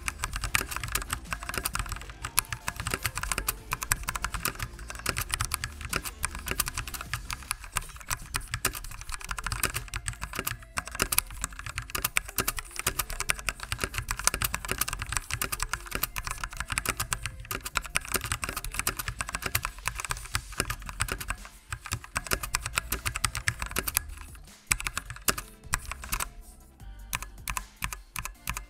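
Continuous fast typing on a HyperX Alloy FPS RGB mechanical keyboard with Kailh Speed Silver linear switches: a dense run of key clicks and keycap clacks, with a brief lull near the end.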